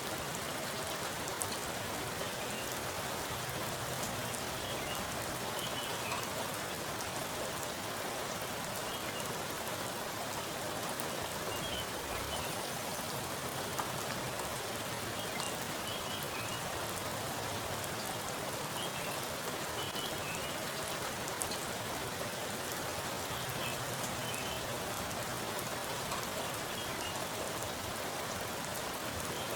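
Heavy rain falling steadily onto a pooled water surface: a dense, even patter of drops splashing into water, with scattered sharper single drop hits.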